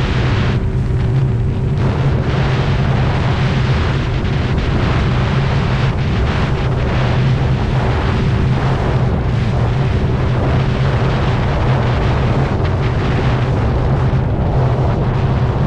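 Single outboard motor running steadily at cruising speed, its low hum under heavy wind noise on the microphone and the hiss of spray off the hull.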